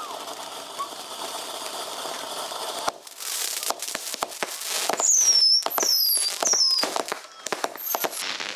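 Fireworks going off. First there is a steady fizzing hiss. About three seconds in it breaks into a dense run of crackles and sharp pops, with several short falling whistles in the middle.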